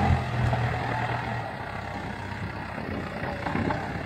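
Farm loader tractor's diesel engine running as it works the front-end loader bucket over the ground. Its low drone drops off about a second and a half in.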